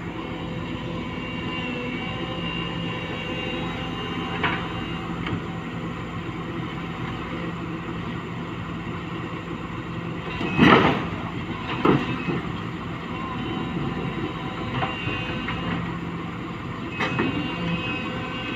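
Newly installed engine running steadily at a constant speed, with a loud knock about ten seconds in and a smaller one a second later.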